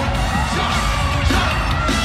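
Live K-pop music played loud over a stadium sound system, with heavy bass, and a crowd screaming and cheering over it.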